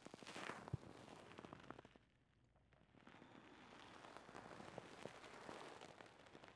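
Near silence with faint rustling and small crackles in two soft swells, from a person moving slowly on a yoga mat.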